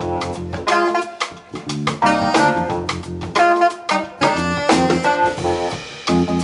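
Jazz quartet playing live: a saxophone plays a melody in short, punchy phrases over keyboards, electric bass and drum kit.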